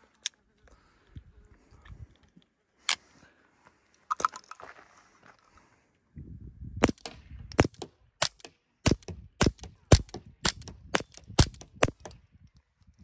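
Suppressed .22 LR shots from a Ruger Mark IV 22/45 pistol fitted with a Little Spoon silencer, firing CCI Quiet semi-auto ammunition. A few single shots come first, then a quick string of about ten shots roughly half a second apart, each a short sharp report.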